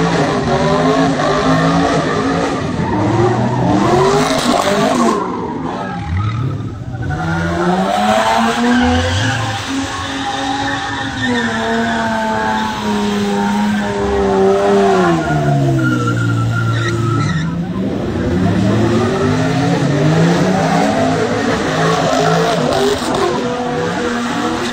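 Cars doing donuts: engines revving hard, their pitch rising and falling over several seconds, with tires squealing as they spin on the asphalt.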